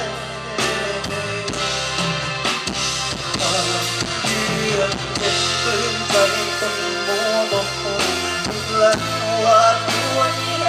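Live rock band playing a song through the PA: drum kit, electric guitars and bass, with a male lead vocal carrying the melody.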